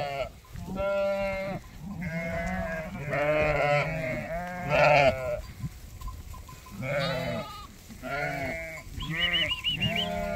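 A flock of ewes and young lambs bleating, many calls overlapping one after another, with a few higher, quavering lamb bleats near the end.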